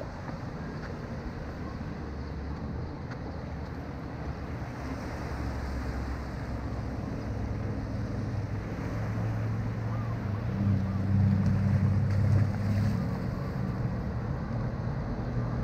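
Wind buffeting a small action-camera microphone over the low rumble of passing car traffic. The rumble swells a little past halfway.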